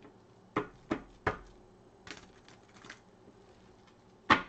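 Tarot cards being handled and laid down on a table: a handful of sharp taps and light clicks, the loudest near the end.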